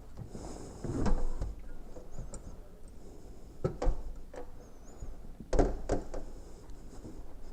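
A few dull knocks and thuds in a small room: one about a second in, one near four seconds, and a close pair near six seconds.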